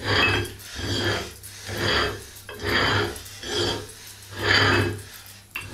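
Adjustable kettlebell being screwed tight, its metal threads grating in about six rough strokes, one roughly every second.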